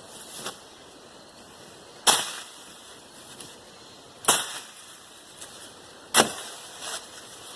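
A hand tool swung into brush and weeds, striking three times about two seconds apart, with a fainter stroke just after the start.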